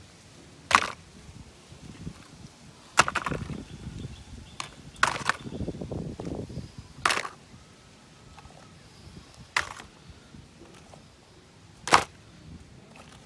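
Muddy toy vehicles knocking and clacking as they are lifted off a concrete ledge and dropped one by one into a plastic laundry basket: about six sharp knocks a couple of seconds apart, with scraping and rustling between them from about three to seven seconds in.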